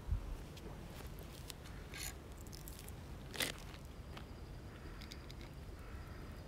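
Handling noise: a low thump right at the start, then scattered clicks and scrapes, the loudest about three and a half seconds in, over a steady low rumble.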